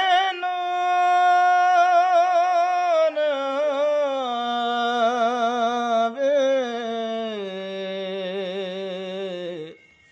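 A man singing unaccompanied: the wordless opening of a devotional song, long held notes with vibrato whose melody steps downward, then stops near the end.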